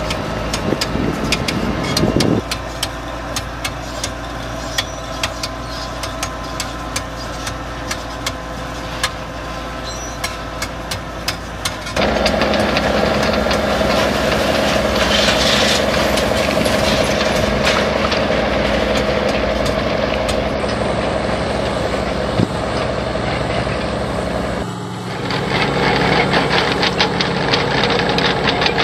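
Heavy diesel engine of a tracked drainage tile plow running steadily under load, with a stream of sharp clicks and rattles. The sound changes abruptly about twelve seconds in and again near the end.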